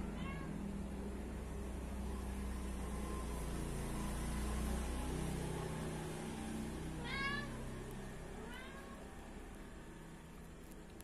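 Kitten mewing: a few short, high mews, the clearest about seven seconds in and another a second later, over a steady low hum.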